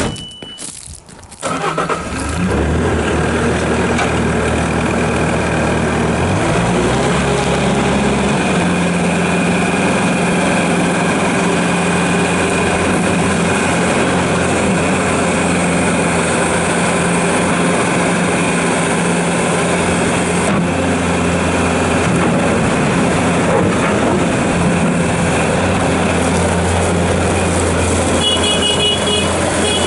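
A 2014 Bobcat S590 skid steer loader's diesel engine cranks and starts after a short electronic beep, then runs steadily. About seven seconds in, the engine speed rises and holds higher. A few short beeps sound near the end.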